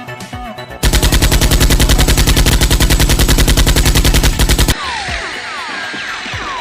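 A long burst of rapid automatic gunfire, a sound effect laid over a Nerf blaster fight, starting about a second in and lasting about four seconds. After it cuts off comes a run of short falling whistling tones.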